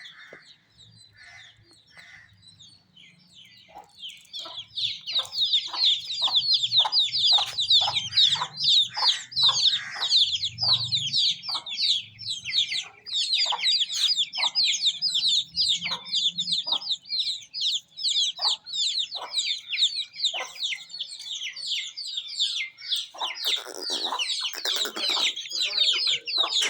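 Many Aseel chicks peeping, a dense run of rapid, high, falling cheeps that grows loud about four seconds in, with short lower clucks among them. A louder, lower call rises over them near the end.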